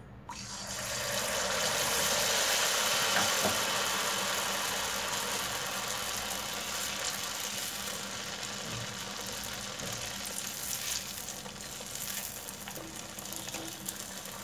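Batter-coated ripe banana pieces sizzling in well-heated oil as they go into the kadai. The sizzle starts suddenly just under half a second in and is loudest over the next couple of seconds. It then eases into a steady frying sizzle.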